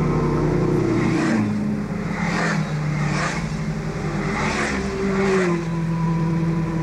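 A string of motorcycles passing close one after another, about five brief rushes of engine and wind noise, with the engine note dropping in pitch as bikes go by.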